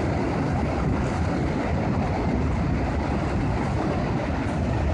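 Steady rumbling noise of wind and rushing river water, with no distinct events.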